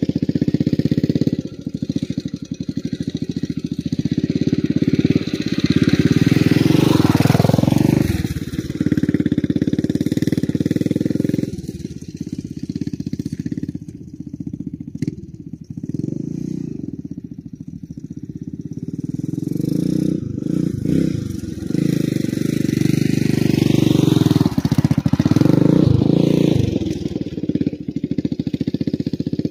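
1980 Honda XR500R dirt bike's single-cylinder four-stroke engine being ridden around out of sight. Its note rises and falls with throttle, growing louder and fading away several times as the bike comes and goes.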